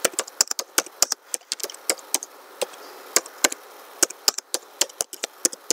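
Typing on a computer keyboard: a quick, irregular run of key clicks, several a second.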